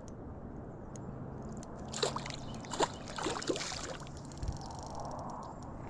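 A few light splashes and sloshes at the water's surface, clustered about two to three and a half seconds in: a hooked spotted gar thrashing beside the boat. A faint steady hum runs underneath.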